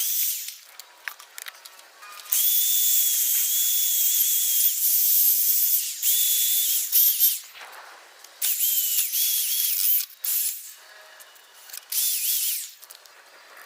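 Aerosol spray paint can spraying in several on-and-off bursts, a steady high hiss with a faint whistling tone, the longest lasting about five seconds.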